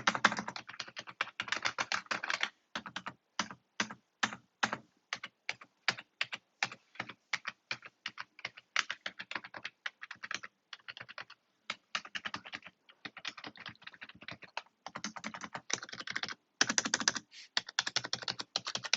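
Typing on a Corsair K55 RGB membrane gaming keyboard: a long run of key presses, in quick flurries near the start and again about fifteen seconds in, with slower, separate keystrokes between.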